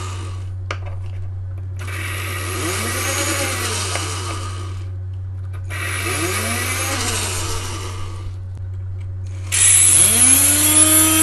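Micromotor spinning a coarse diamond disk with a steady hum, as a steel graver is ground against it in three passes: a hissing grind about 2 s in, again about 6 s in, and a louder one near the end. Each pass carries a whine that rises and falls in pitch.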